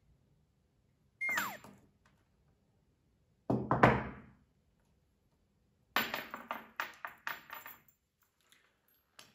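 Hand crimping tool and fishing tackle being handled while a heavy-monofilament trace is made up. About a second in there is a short squeak that falls in pitch. A louder clatter comes just before the middle, then a quick run of about nine metallic clicks over two seconds near the end.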